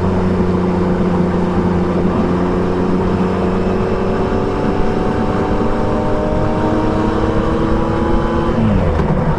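Triumph Trident 660's inline three-cylinder engine through an Akrapovic exhaust, pulling under load with its note climbing slowly and steadily. Near the end the engine note drops sharply.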